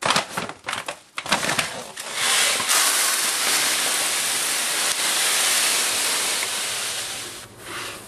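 A plastic bag of silica-crystal cat litter rustles and crinkles as it is handled. Then the crystals pour steadily into a plastic litter pan with an even hiss for about five seconds, tailing off near the end.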